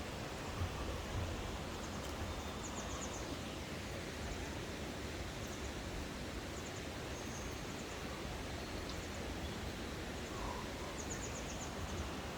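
Steady outdoor background noise, with faint high bird chirps a few times.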